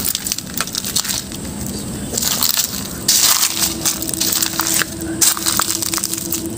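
Footsteps crunching on dry leaves and twigs, an irregular crackle roughly once a second at a walking pace.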